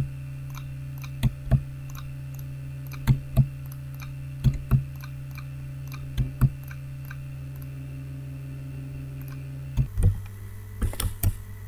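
Computer mouse clicking, mostly in quick pairs about a quarter second apart, repeated several times, over a steady low electrical hum that drops away near the end.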